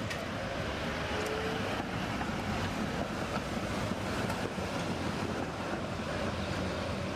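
Two coupled Konstal 105N-type tram cars passing close by, their wheels and running gear making a steady rumble on the rails, with a brief faint whine a little over a second in.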